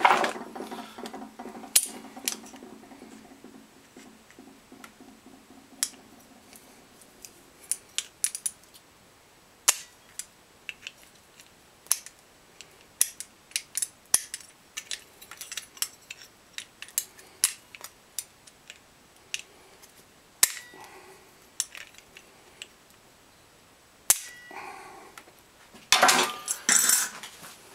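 Scattered sharp metallic clicks and taps of pliers crimping the hub of a small stamped metal vent fan onto a motor shaft, with a ringing tone fading over the first few seconds and a louder clatter near the end.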